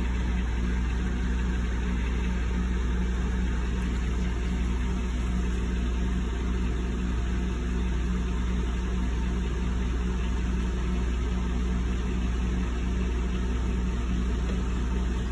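Steady low mechanical hum, a constant drone with a couple of steady tones above it, unchanging throughout.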